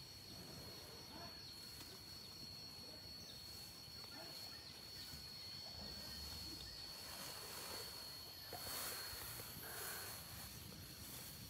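An Asian elephant feeding on a pile of cut bamboo and grass: faint rustling and crunching of leaves and stalks, louder and busier between about seven and ten seconds in, over a steady high insect buzz.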